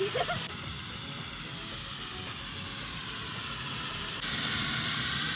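Small toy quadcopter's propellers whirring steadily in a hissing whine as it hovers and flies. The sound shifts abruptly twice.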